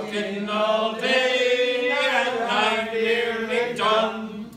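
A man singing a slow song unaccompanied, with long held notes, fading out near the end.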